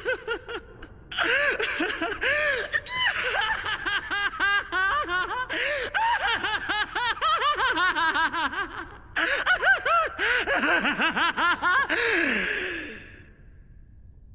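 Anime voice acting: a man's long, high-pitched laughing fit, rapid 'ha's arching up and down in pitch, broken by two short pauses for breath about a second and nine seconds in, and trailing off in a long falling tone near the end.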